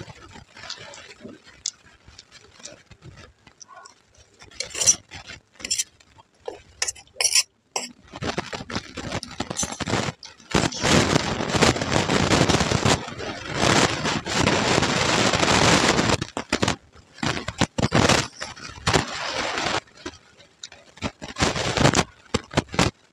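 Steel spoon clinking and scraping on a steel plate while puffed rice (muri) with ghugni is mixed, scooped and chewed. There are a few sharp clinks about five to seven seconds in, then long stretches of dense crackly noise from about eight seconds in.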